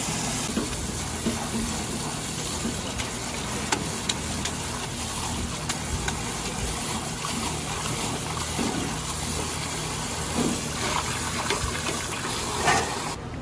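Steady rush of tap water from a sprayer faucet pouring onto cooked thin noodles in a metal strainer in a stainless steel sink as they are rinsed by hand, with a few short clicks scattered through.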